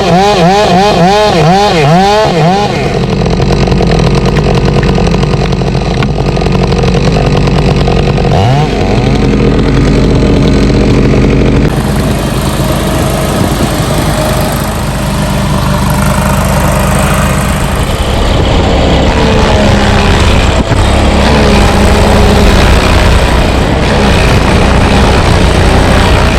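An engine of tree-removal equipment runs loudly and continuously. Its pitch swings up and down for the first couple of seconds, then holds fairly steady.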